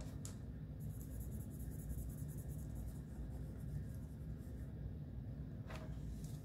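Marker colouring in on a paper sheet: faint rubbing strokes over a low, steady room hum.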